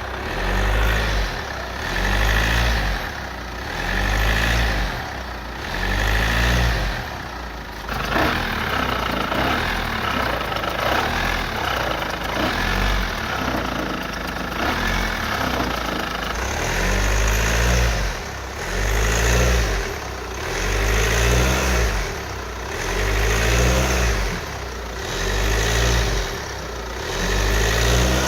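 Hyundai Trajet engine running with its accessory drive belt, swelling and easing in a regular pulse about every second and a half, steadier for several seconds in the middle.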